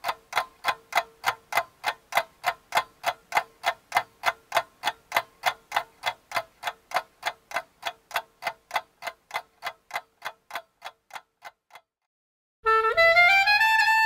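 Ticking sound effect, evenly spaced at about four ticks a second over a faint steady tone, slowly fading away. After a brief silence, music begins near the end.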